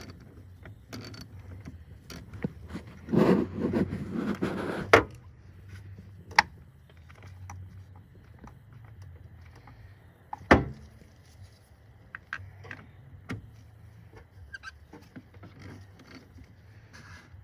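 Hand tools and parts being handled under a pickup's hood during a battery replacement. There is a scraping, rattling stretch about three to five seconds in, then scattered sharp clicks and knocks. The loudest knock comes about ten seconds in.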